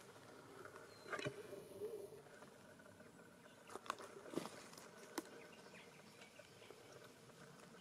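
Faint outdoor ambience with a handful of scattered sharp clicks and crackles, the loudest about a second in and again between about four and five seconds in.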